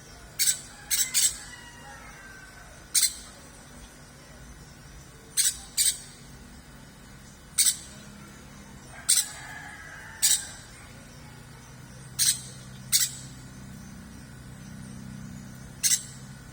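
Hand spray bottle misting a caged songbird for its bath: about a dozen short, sharp spurts at irregular intervals, with faint bird calls between them.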